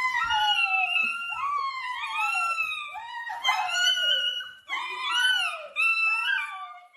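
A dog vocalizing in a long string of high whining howls, each call rising and falling in pitch, with brief breaks about five and six seconds in.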